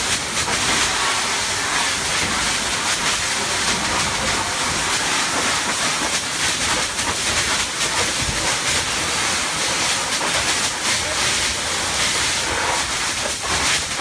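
A 2.5-inch hoseline's 1 1/8-inch smooth-bore tip flowing a solid stream into the ceiling: a loud, steady hiss and rush of water striking and spattering off the ceiling and debris.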